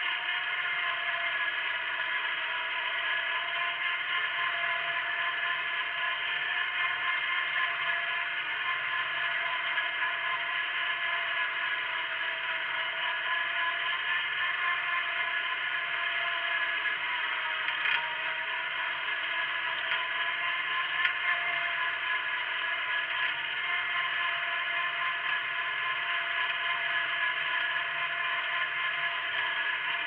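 Wheel Horse garden tractor running steadily under load while pulling a single-bottom plow through the soil, with a couple of faint knocks a little past the middle.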